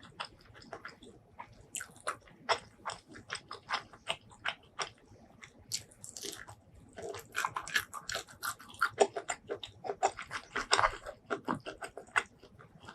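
Close-miked eating: steady chewing with sharp crunchy bites and wet mouth clicks, denser about halfway through and again near the end.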